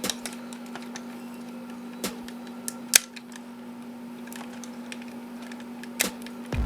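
Scattered sharp clicks and taps of hard ABS plastic parts of a transforming action figure being pushed and handled, the loudest about three seconds in, over a steady low hum.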